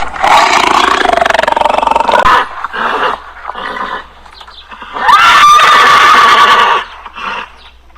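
Loud animal calls: a long harsh call in the first two seconds or so, then quieter calls, then about five seconds in a call that rises sharply in pitch and holds a steady tone for over a second.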